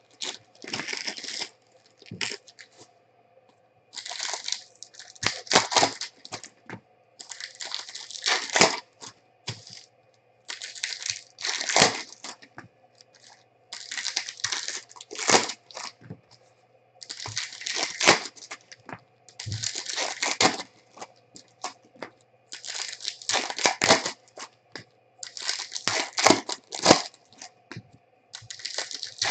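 Foil Bowman Chrome trading card packs being torn open and crinkled, with the cards inside handled and flicked through; rustling, crinkly bursts come every two to three seconds, with short pauses between.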